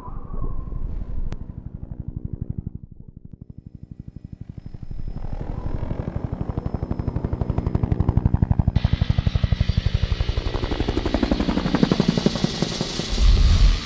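Dirt bike engine running in a fast, even pulse that builds in loudness, with a hiss coming in abruptly about two-thirds through and a deep boom near the end.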